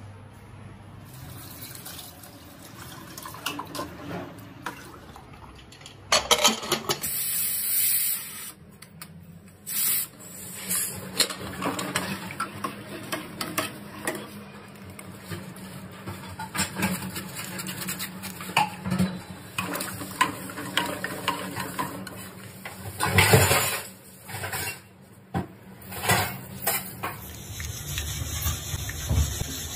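Cooking sounds from an aluminium pressure cooker and a pan: a spoon scraping and clinking against the metal while liquid is poured in and stirred. The clatter comes and goes, with louder stretches about six seconds in and again near the end.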